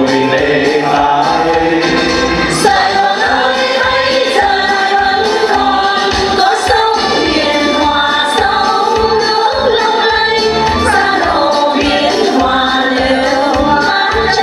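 A mixed choir of women and men singing a Vietnamese song together over instrumental accompaniment with a steady beat.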